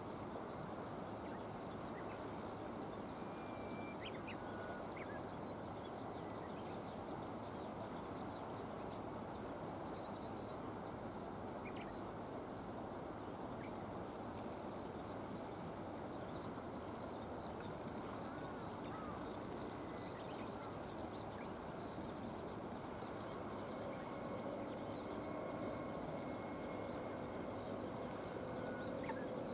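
Steady hiss of rain outdoors, with a few short, faint bird chirps. Near the end a low droning hum comes in and grows a little louder.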